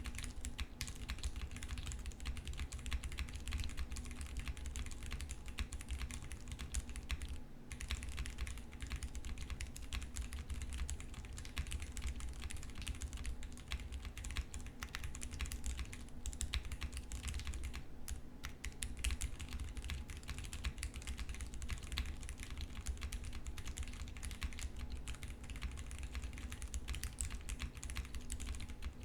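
Continuous typing on a custom 60% mechanical keyboard with lubed Cherry MX Brown tactile switches, an FR4 plate, a tape-modded PCB and GMK keycaps: a steady stream of key clacks, with a brief pause about seven and a half seconds in.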